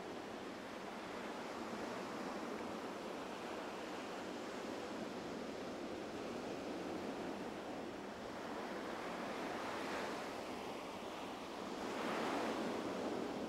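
Surf washing onto a sandy beach: a steady hiss of breaking waves that swells louder near the end.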